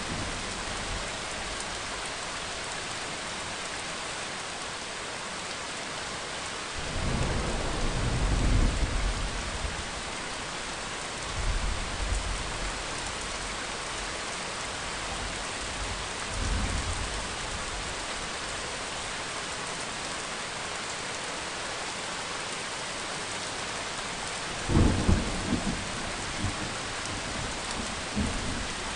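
Steady heavy rain falling, with several rolls of thunder. A long rumble builds about a quarter of the way in, two shorter rumbles follow soon after, and a sharper, louder thunderclap comes near the end.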